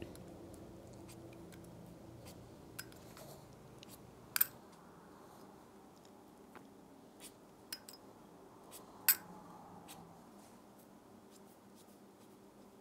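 Scattered small clicks and taps from a Pilot Parallel fountain pen and a glass water jar being handled on a desk, two of them sharper, about four and nine seconds in. A faint steady hum runs underneath.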